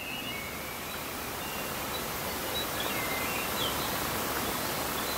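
Steady, even hiss of background noise, with a few faint, short high chirps over it.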